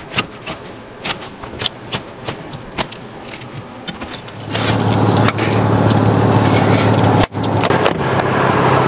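Metal clothes hangers and belt buckles clicking and scraping on a rack as items are pushed aside. About halfway, a louder, steady rushing noise with a low hum takes over.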